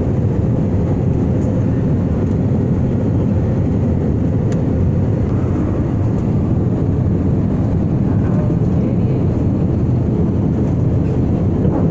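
Steady cabin noise of an airliner in flight, the even sound of its engines and the airflow, strongest in the low end and heard inside the cabin.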